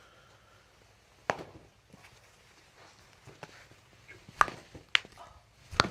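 A few short, sharp knocks at uneven intervals, the loudest coming in the second half.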